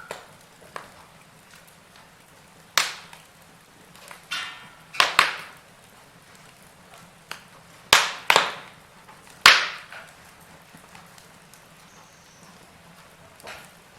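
Burning logs crackling in a fireplace: irregular sharp pops and snaps over a faint steady hiss. The loudest pops come in a cluster between about five and ten seconds in.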